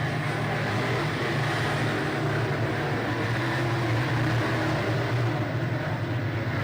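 A field of dirt-track modified race cars running at racing speed, their engines blending into one steady, dense drone.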